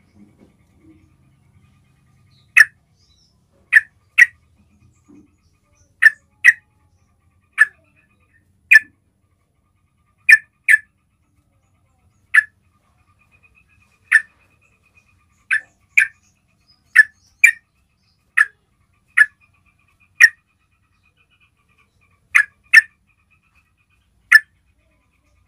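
Yellow-vented bulbul giving short, sharp call notes, singly and in quick pairs, roughly one a second, starting a couple of seconds in.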